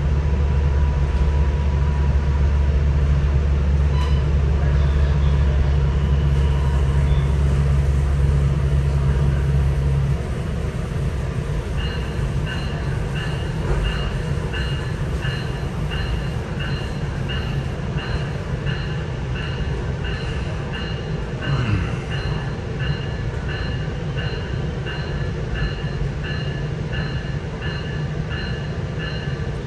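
Two-car Nippon Sharyo diesel multiple unit heard from inside, running along the line. Its heavy low engine drone drops away about ten seconds in. From about twelve seconds a bell rings in a steady, even beat over the running noise.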